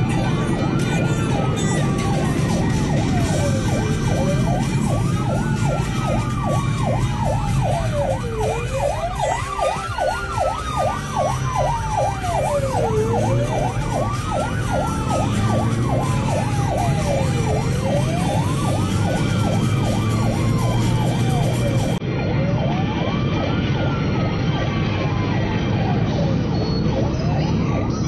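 Emergency response car's electronic siren on a slow wail, rising and falling about every four to five seconds. About eight seconds in it switches to a fast yelp for some five seconds, then returns to the wail. Engine and road noise run underneath, heard from inside the moving car.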